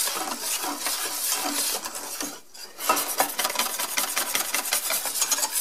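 Wire whisk beating a thick batter of soy milk and flour in a stainless steel bowl: rapid, steady scraping and clinking strokes against the metal, with a short pause about halfway through.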